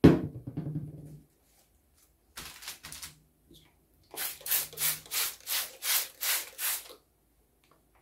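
Hand-pumped trigger spray bottle spritzing liquid dye onto paper and a paper doily: a quick run of about nine short hissing squirts, about three a second, starting about four seconds in, with one more at the end. A knock and handling noise at the very start.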